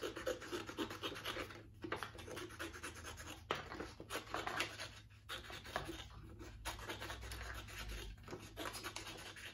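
Small scissors cutting through construction paper: repeated short snips, with the sheet rustling as it is turned.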